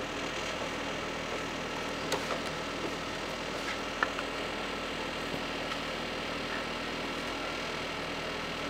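Steady mechanical room hum with a few faint clicks.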